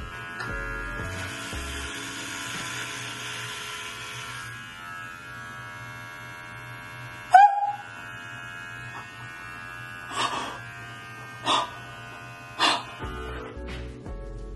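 Electric hair clippers running with a steady hum as they go into the hair. About seven seconds in comes a brief startled cry, then a few short breathy bursts. Background music plays underneath.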